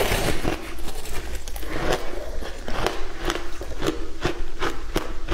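A bite into a block of frozen shaved ice coated in passion fruit pulp, with a loud crack at the start. The ice is then chewed in steady crunches, about three a second.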